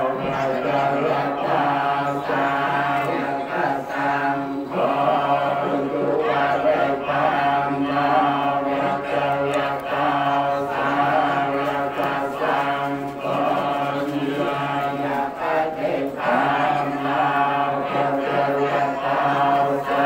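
Khmer Buddhist blessing chant (sot mon): several voices recite prayers together on a steady, drone-like pitch, breaking briefly twice as if for breath.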